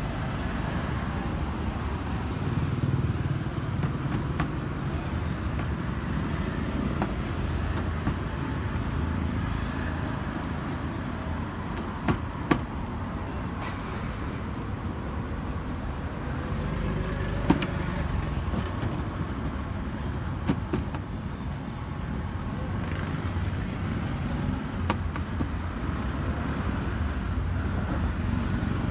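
Steady low rumble of street traffic, with a few sharp knocks scattered through it.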